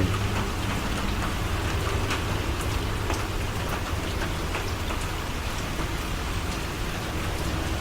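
Steady rain falling: a continuous even hiss with scattered drop ticks.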